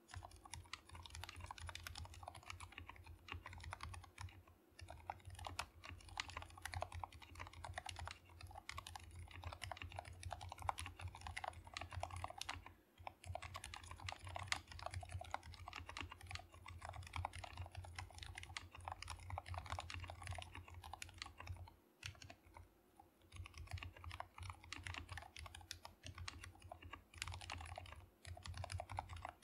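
Continuous fast typing on a GK61X 60% hot-swap mechanical keyboard fitted with lubed Gateron Silent Black switches and lubed stabilizers: a quiet, muted clatter of keystrokes with a few short pauses.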